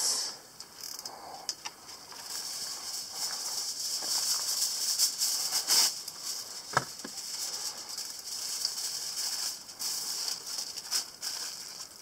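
Aluminium foil crinkling and rustling as it is pulled off the roll and wrapped around a sweet potato, with one louder crackle about halfway through.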